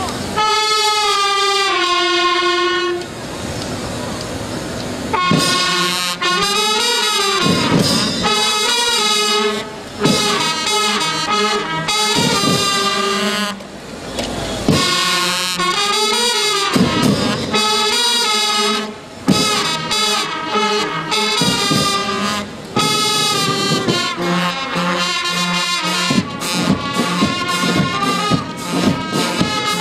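School brass and drum band playing: trumpets, trombones and euphoniums over snare and bass drums. It opens with a held brass chord, goes softer for a couple of seconds, then plays a tune in phrases with short breaks between them. A steady drumbeat stands out near the end.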